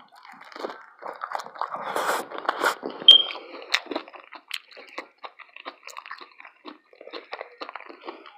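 A person biting into and chewing a taco, with many short, crisp crunches that are loudest and densest in the first few seconds, then lighter chewing.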